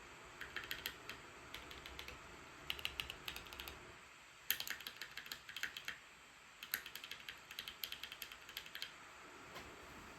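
Typing on a Keychron Q1 mechanical keyboard with Dark Jade switches: quick runs of key clicks with short pauses between them. A laptop's cooling fans hiss steadily underneath.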